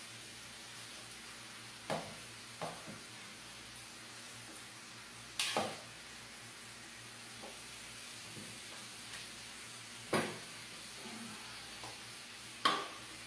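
Pieces of fish frying in butter in a pan: a faint steady sizzle, with five short knocks against the pan as pieces are laid in, the loudest near the end.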